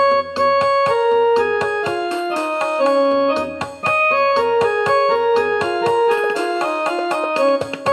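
Background piano music: a melody in raag Bhupali played note by note, with a brief pause a little before the middle.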